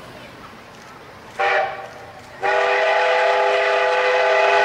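Whistle of the C56-44 steam locomotive: a short blast about a second and a half in, then a long steady blast from about two and a half seconds in, several tones sounding together.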